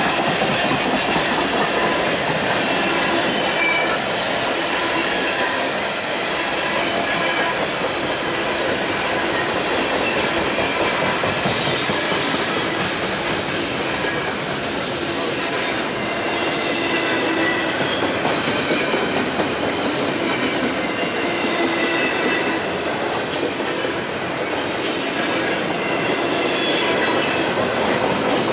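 Freight train cars rolling past: a steady rumble of steel wheels on rail, with faint high-pitched wheel squeals coming and going.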